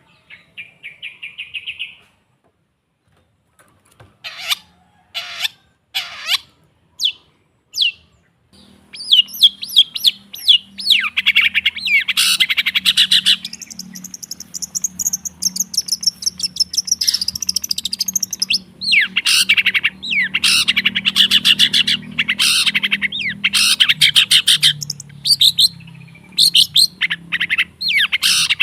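Long-tailed shrike (cendet) calling: a short fast trill, then a few separate sweeping calls, and from about a third of the way in long runs of rapid, repeated chattering notes with a high whistle woven through.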